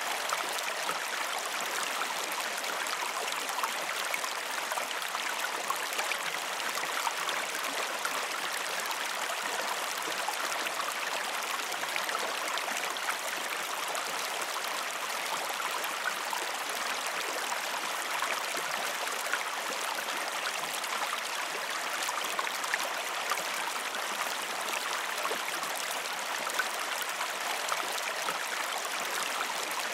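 Creek water flowing steadily, an even rush with fine splashing throughout.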